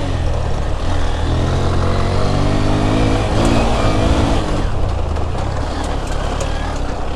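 Motorcycle engine running while riding over a rough dirt road, its revs rising and falling in the middle, with wind noise on the microphone and a few sharp knocks near the end.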